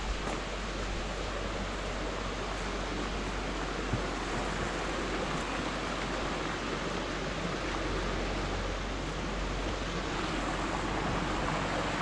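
Steady rushing of falling water, an even roar with no breaks.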